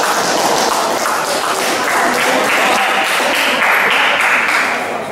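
Spectators clapping after a table tennis point ends, a dense spell of applause that dies down near the end.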